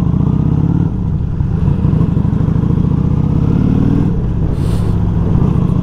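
Harley-Davidson chopper's V-twin engine running under way, its exhaust note climbing in pitch as it accelerates. Engine speed dips about a second in and drops again about four seconds in.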